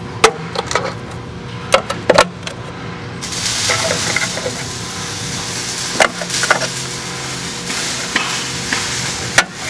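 Rectangular magnets clacking one after another onto a steel discharge chute, several sharp clicks, over a steady hiss and hum from the running separation machinery. The hiss grows louder about three seconds in.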